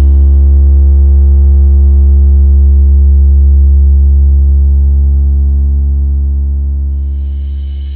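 Bass test tone for a DJ sound-system check: a loud, steady, very deep tone held without a break, fading slowly over the last few seconds.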